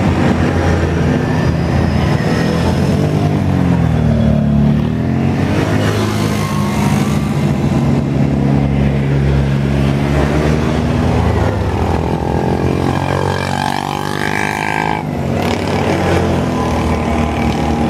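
Engines of Can-Am quad bikes (ATVs) and a side-by-side passing one after another, each one's pitch rising and falling as it goes by, over a steady engine hum close by. A brief higher-pitched sound comes near the end.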